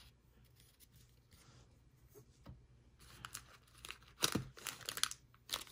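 Foil trading-card pack wrappers crinkling as a hand handles and picks up a pack. The crinkling starts about three seconds in, after a near-quiet stretch, and is sharpest a little after four seconds.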